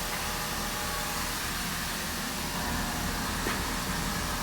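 Large industrial air compressor running with a steady hum and hiss.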